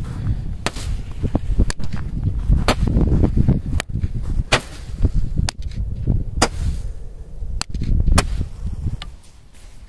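Roman candle (Sterminator) firing its shots one after another: about nine sharp pops, roughly one a second, over a low rumble.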